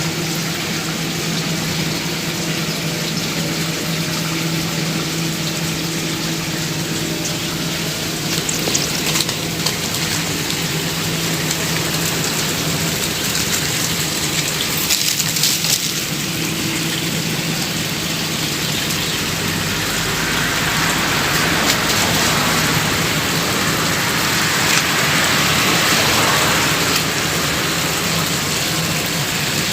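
Steady rushing water noise, with a low steady hum beneath it for the first two-thirds. The rushing grows a little louder and brighter about two-thirds of the way in.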